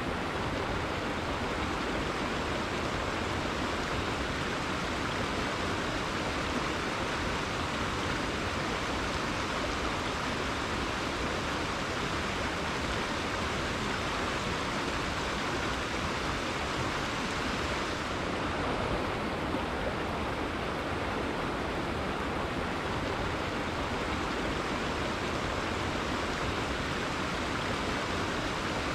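Rainforest river flowing, a steady rush of running water.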